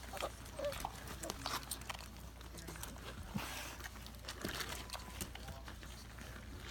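A litter of puppies suckling from their mother: many small wet smacks and clicks, scattered irregularly, with a brief squeak under a second in.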